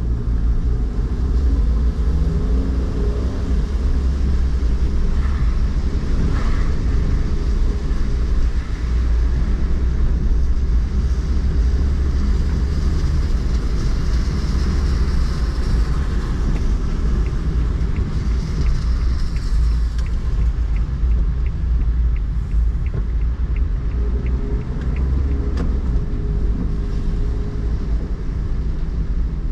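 Car driving through rain-soaked city streets, heard from inside the cabin: a steady low drone of engine and road, with tyre hiss off the wet road that swells now and then. A run of light, evenly spaced ticks comes in during the last third.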